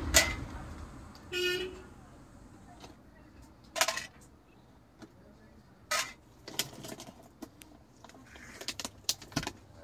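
A short vehicle horn toot about a second and a half in. Around it are scattered sharp clicks and knocks, the loudest near the start and at about four and six seconds.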